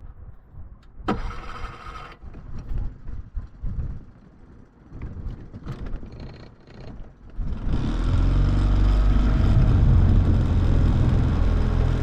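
A small boat's outboard motor starting about three-quarters of the way in and settling into a steady idle, after a few knocks and handling sounds.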